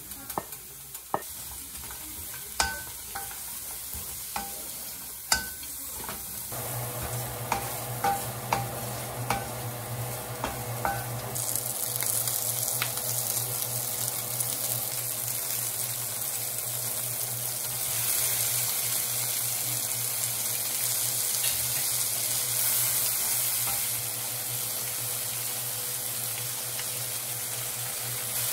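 Sliced onions and green onions stir-fried with a wooden spatula in a hot nonstick pan, the spatula clicking against the pan at first. About eleven seconds in, a steady sizzle sets in as cooking oil is poured in, and it grows louder later on. A low steady hum joins about six seconds in.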